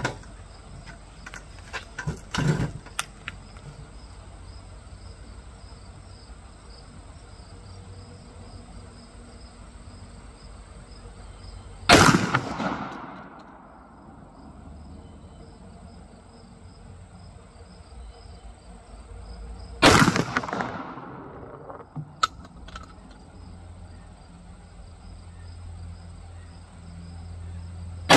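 Two shots from a Remington 1100 semi-automatic shotgun, about eight seconds apart, each followed by a short echo dying away. A few light clicks come about two seconds in, and insects buzz steadily in the background.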